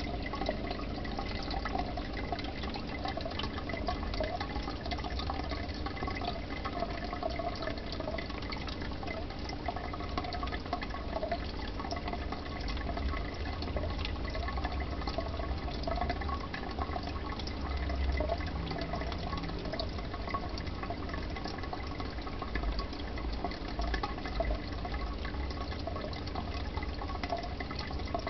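Aquarium water bubbling and trickling steadily, with many small drips and splashes.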